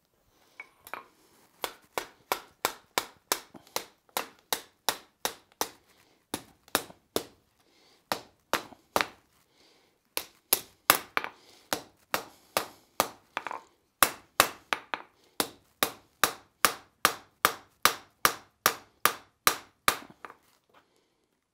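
Hand hammer striking a red-hot steel bar on the anvil in steady blows, about two and a half a second, in runs broken by short pauses. The blacksmith is forging the tapered scarf on the bar's end for a forge weld.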